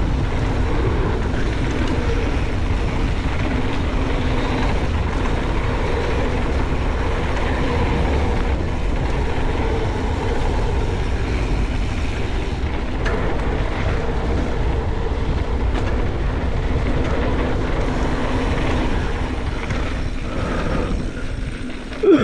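Wind rushing over the microphone and mountain bike tyres rumbling over a dirt trail during a fast downhill run. The noise eases off near the end as the bike slows.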